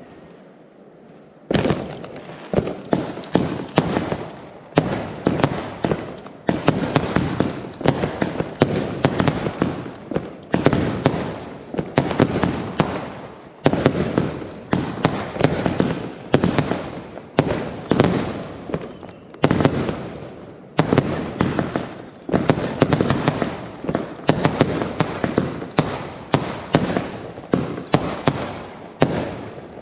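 Fireworks display: a dense run of sharp bangs and crackling shell bursts, several a second, starting about a second and a half in after a brief lull.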